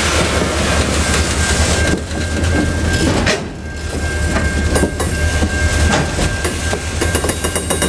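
Grain train's hopper wagons rolling slowly past as the train is shunted back, wheels clacking over rail joints above a steady low rumble. A thin steady high whine runs through most of it, and the clacks come faster near the end.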